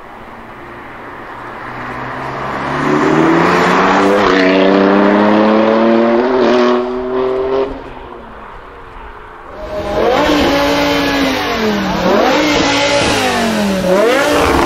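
A BMW engine accelerating hard, its pitch rising steadily for several seconds. After a brief lull, a BMW E60 M5's V10 is revved up and down several times.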